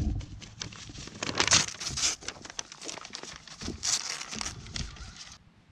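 A sheet of paper crinkling and tearing as a goat bites and tugs at it, in irregular crackly flurries that stop shortly before the end.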